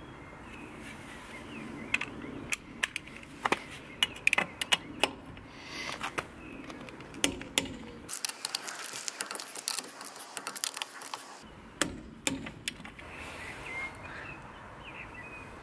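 Irregular metallic clicks and clinks of hand tools and a socket being handled on a car wheel's lug nuts, coming in quick clusters through the middle and thinning out near the end.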